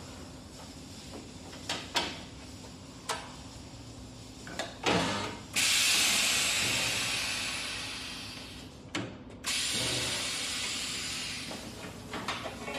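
Magnetic sheet metal brake in a bending cycle: a few sharp clicks and knocks of metal parts, then, as the foot pedal is pressed, a loud hiss of compressed air that slowly fades, stops with a click and starts again for a second, fading hiss.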